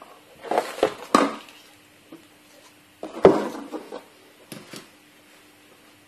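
Handling noises: objects knocked and set down in a few short clattering bursts, then two light clicks, over a faint steady hum.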